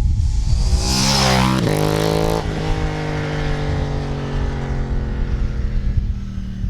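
KTM 790 Duke parallel-twin motorcycle on a Leo Vince LV10 dual slip-on exhaust, accelerating past. The engine note climbs about a second in, then drops and fades slowly as the bike pulls away.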